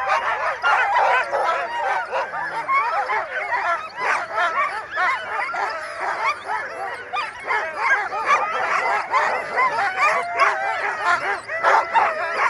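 A team of harnessed Alaskan huskies barking, yipping and whining all together in a constant, overlapping chorus, eager to run at a sled dog race start.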